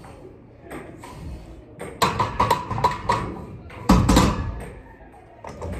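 Barbell loaded with 45-lb plates being bench-pressed, with sudden knocks and clanks from the bar and plates and a heavy thud just before four seconds in.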